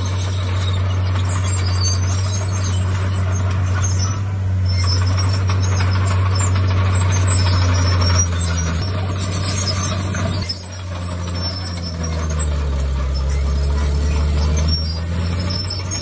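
Heavy diesel earthmoving machinery running, a steady low engine hum with clatter and hiss over it; the sound dips briefly about ten seconds in and the engine note then shifts up and down in pitch.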